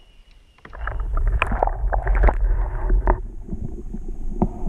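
Water sloshing and knocking around an action camera dipped below the surface, heard as a loud, muffled low rumble that starts about half a second in.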